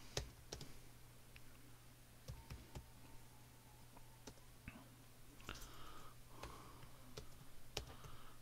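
Faint computer keyboard typing: scattered, unhurried keystrokes as short commands are entered, over a steady low hum.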